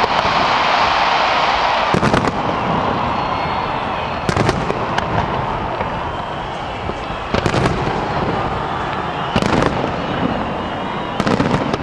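Aerial fireworks shells bursting: sharp bangs every couple of seconds, some in quick pairs or runs, over a steady hiss.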